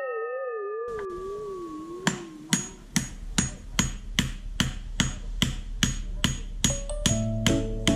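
A wavering electronic tone sliding slowly down and fading over the first two and a half seconds. Then a strictly even metallic tapping beat starts, about two and a half knocks a second, and musical notes join it near the end: an edited-in music cue.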